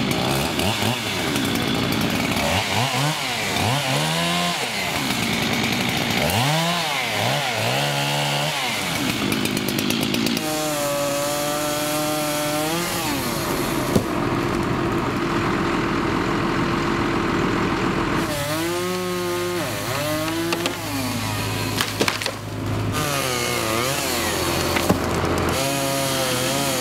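Gas chainsaw cutting maple limbs: the engine revs up and down in a string of throttle bursts, holds high and steady for a couple of seconds while biting through the wood, then revs up and down again later.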